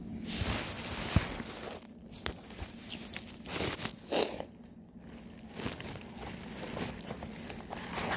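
Chunks of raw cornstarch crunching and squeaking as they are bitten and chewed close to the microphone, in a few bursts, loudest in the first second or so and again around the middle.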